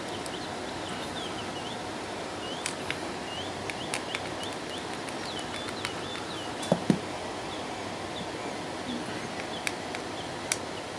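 A few small sharp clicks from a screwdriver tightening the cord clamp on a plastic fan switch box, over a steady hiss. Faint high bird chirps come through the first half.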